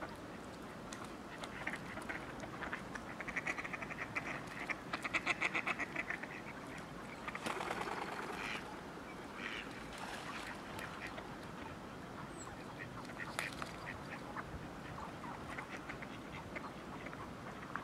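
Mallard ducks quacking, with a run of rapid, closely spaced quacks a few seconds in that is the loudest part, and a brief noisy rush around eight seconds in.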